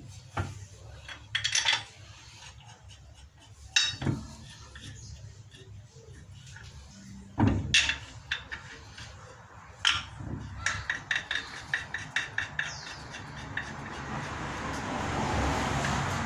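Hand tools and metal parts clinking and knocking during front-wheel brake reassembly: several sharp separate clanks, then a quick run of clicks, about five a second, two thirds of the way in. A rising hiss builds near the end.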